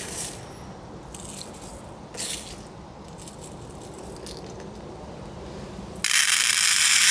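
Lead shot stirred and scooped in a plastic tub with a small measure, giving a few faint scrapes and rattles. About six seconds in, the measured shot is poured into a scale pan: a loud rush of pellets lasting about a second.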